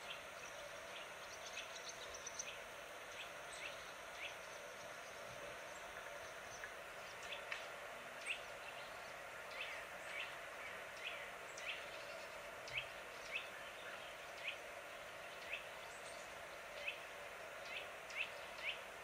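Small birds chirping: short, quick, falling chirps repeated irregularly, coming more often and standing out more from about a third of the way in, over a steady outdoor background hiss.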